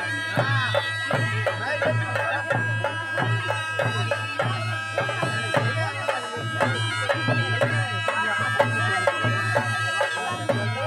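Traditional folk processional music: a wind instrument plays a wavering melody over a steady drone, with a drum beating a steady rhythm.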